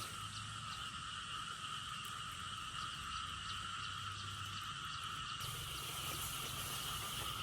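Steady chorus of calling insects: a constant drone with two sustained pitches, and faint ticking calls a few times a second over it.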